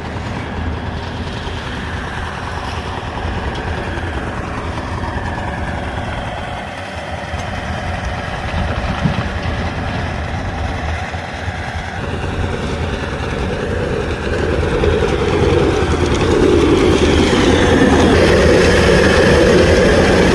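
Heavy road-construction machinery running: a steady engine drone that grows louder about two thirds of the way through.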